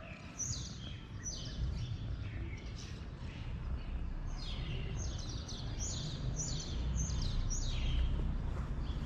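Small birds chirping: a run of quick high chirps, each dropping in pitch, coming thicker in the second half, over a steady low rumble.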